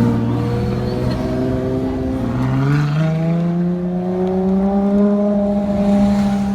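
Ferrari LaFerrari Aperta's V12 engine running with a steady note that steps up in pitch about three seconds in, then keeps climbing slowly.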